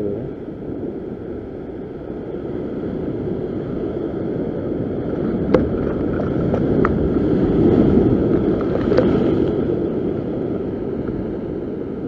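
Heavy ocean swell surging and breaking over coastal sea rocks: a continuous rushing wash that swells louder about two-thirds of the way through, with a few sharp clicks around the middle.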